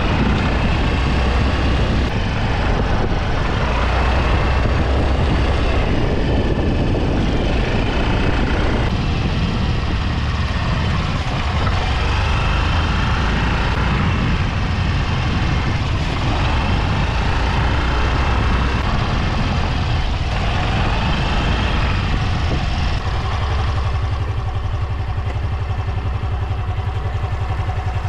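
Yamaha Grand Filano scooter being ridden on the road: engine running, with heavy low road and wind rumble on the microphone.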